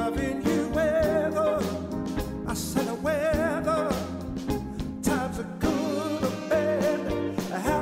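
Soul song: a singer holding notes with a wide vibrato over a band backing with bass.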